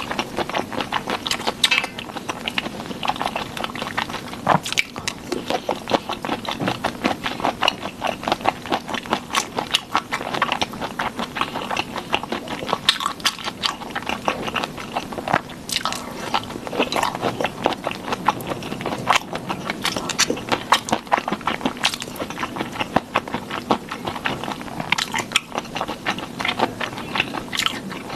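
Close-miked eating of sauce-covered shrimp: continuous wet chewing, biting and lip smacks, with sharp crunchy snaps scattered throughout.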